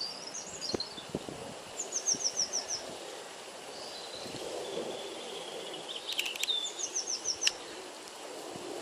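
Small songbird calling over a steady outdoor background noise: a quick run of high, falling chirps about two seconds in, and again about seven seconds in, with a few other scattered bird notes. A few sharp clicks sound shortly before the second run.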